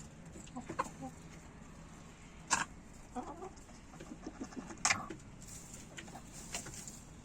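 A chicken clucking softly, with two short, sharp sneezes a little over two seconds apart.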